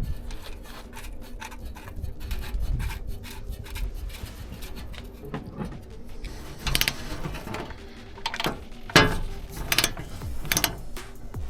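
Hand tools clicking and clanking in irregular strokes, with a few louder metallic knocks in the second half.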